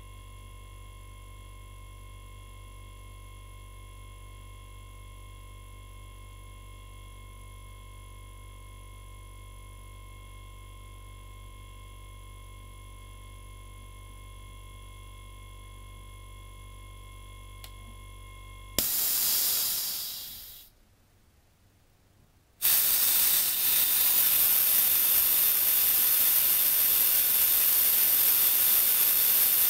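Refrigerator compressor running with a faint steady hum, cutting out suddenly about two-thirds of the way through as the pressure switch trips, with a short hiss of air that fades over about two seconds. After a brief quiet, a loud steady hiss of compressed air being let out of the tank to drop the pressure.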